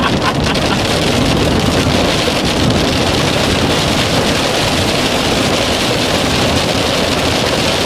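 Hail and heavy rain pelting the roof and windshield of a moving vehicle, heard from inside the cabin over steady road noise. The sound is a dense, even patter that stays constant throughout.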